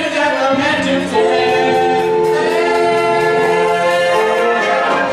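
A group of voices singing a stage-musical number, holding a long chord through the middle.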